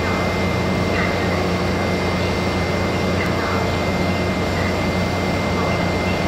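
Diesel engines of a Taiwan Railway DR2800-series diesel multiple unit idling while the train stands at the platform: a steady low drone with a constant thin high whine over it.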